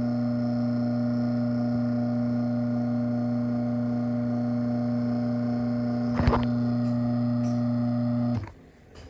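Craftsman half-horsepower chain-drive garage door opener running steadily with a low hum while closing the door. There is a sharp knock about six seconds in, and the motor stops abruptly a couple of seconds later.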